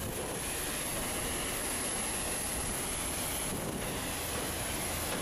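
Steady jet aircraft noise on an airport apron: an even, unbroken rumble and hiss that holds at the same level throughout.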